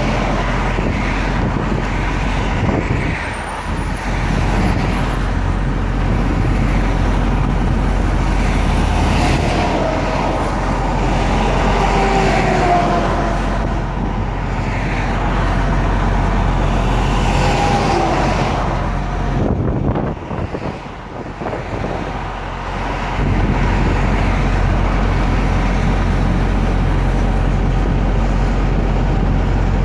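Freeway traffic noise: cars and trucks passing close by, engines and tyres in a steady wash, with a few brief whining tones in the middle.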